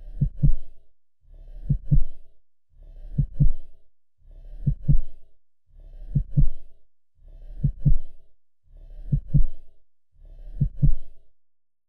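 Slow heartbeat: eight low double thumps, lub-dub, about a second and a half apart.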